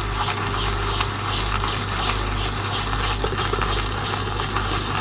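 Synthetic shaving brush swirled over pressed shaving soap in a small plastic bowl to load it: a continuous scratchy swishing made of many quick fine strokes.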